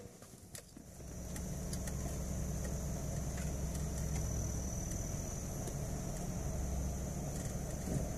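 2001 Subaru Legacy GT's engine running low and steady as the car creeps along a rough trail. The rumble picks up about a second in.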